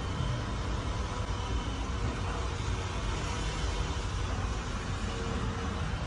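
Steady traffic and road noise: a continuous low rumble of engine and tyres with hiss above it, with no distinct event standing out.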